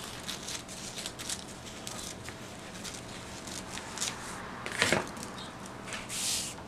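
Scissors snipping through tissue paper, a run of small crisp cuts. About five seconds in comes a louder knock, then a short brushing sound as a hand smooths over the paper.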